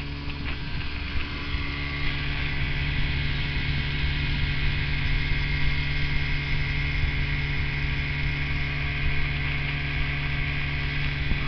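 Evinrude Fastwin twin-cylinder two-stroke outboard motor running steadily at speed with an even hum, with the rush of water from the wake. It gets a little louder about two seconds in.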